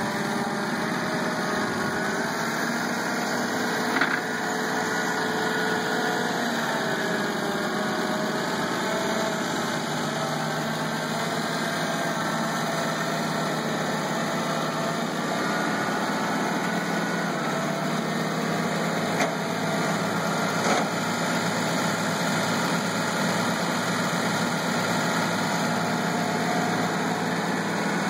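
Allis-Chalmers 190 tractor's six-cylinder gasoline engine idling steadily, with a slight dip and recovery in pitch a few seconds in and a few faint clicks.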